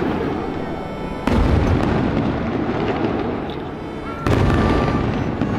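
Aerial fireworks shells bursting: two loud booms, one about a second in and another about three seconds later, each followed by a long rolling rumble.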